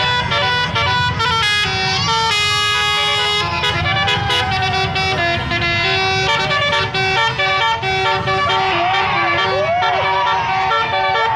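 Telolet bus horn: a set of multi-trumpet horns playing a fast melody of stepped notes that repeats and changes, with a low rumble underneath.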